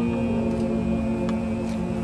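A high school choir singing, holding one long sustained chord.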